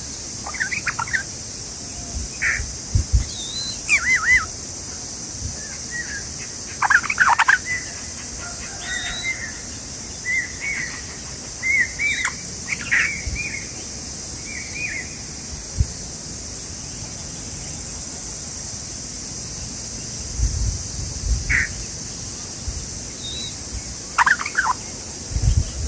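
Small birds at a nest giving scattered short chirps and warbled calls over a steady high hiss, with a few low thumps near the end.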